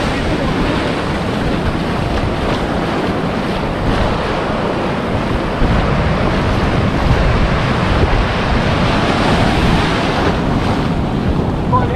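Ocean surf breaking and washing in shallow water, with wind buffeting the microphone; a steady, unbroken rush with a deep rumble underneath.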